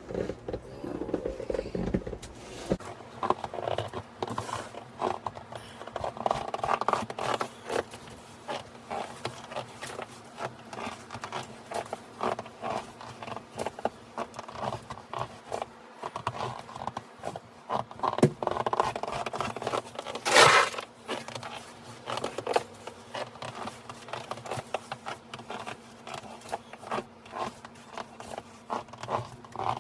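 A snow shovel working through deep snow, with continual crunching and scratching, and one loud, sharp scrape about twenty seconds in.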